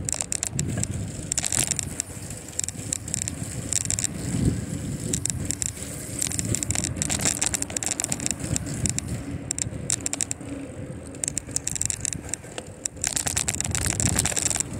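A bicycle ride with tyre rumble and wind buffeting the microphone, broken by irregular crackling and rattling from the bike on the path.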